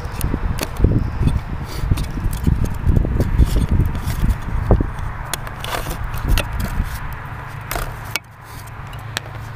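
Wind rumbling on the camera microphone, with knocks, clicks and scrapes of handling as the battery of a landed DJI Phantom quadcopter is unplugged. The noise drops off abruptly about eight seconds in, as the yellow battery plug is pulled.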